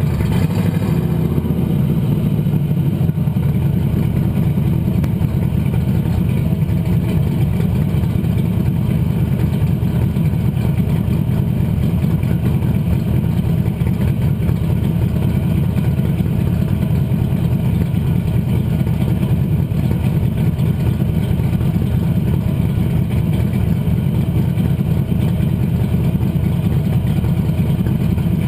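The 357 small-block Chevy V8 of a 1947 Chevy pickup hot rod running steadily while the truck drives, mixed with the rush of wind over a camera mounted outside on the body. The sound stays loud and even, without clear revs or lifts.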